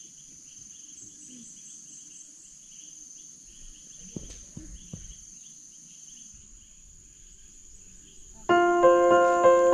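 Insects chirping: a steady high trill over rhythmic, repeated chirps, with a couple of soft knocks midway. Loud piano music starts near the end and becomes the loudest sound.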